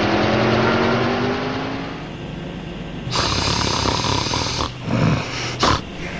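Background music fades out over the first two seconds; then, from about three seconds in, a man snores in his sleep with hissing breaths, a few of them louder near the end.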